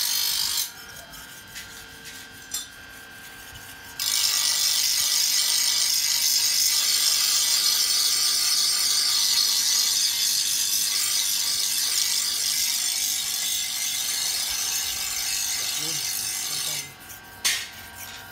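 Hand-forged gyuto knife slicing through cloth: a continuous high-pitched rasp of fabric fibres being cut. It stops briefly near the start, resumes for about thirteen seconds, and ends shortly before a single sharp click.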